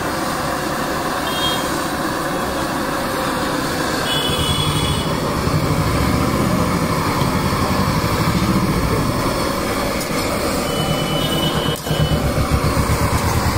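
Busy street ambience: a steady rumble of traffic and running engines, with short high-pitched beeps three times.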